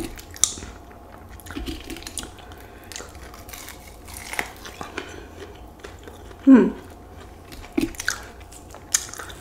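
A person chewing and biting into crispy fried chicken wings, with scattered small crunches. A short falling hum, like a voiced "mm", about six and a half seconds in, and another brief one near eight seconds.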